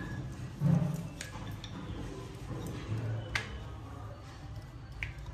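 Rolling pin rolling out a ball of chapati dough on a board: a few soft low thumps and several light, sharp clicks of the pin against the board.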